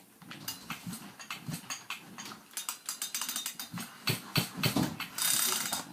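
Husqvarna chainsaw's recoil starter being pulled by hand: the engine turns over against compression with a series of clicks and knocks, without firing, and ends in a longer rasping pull. The compression is good.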